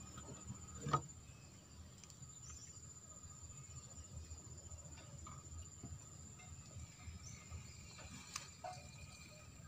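Faint, steady high-pitched insect trill over a low background rumble, with a sharp knock about a second in and a lighter click near the end.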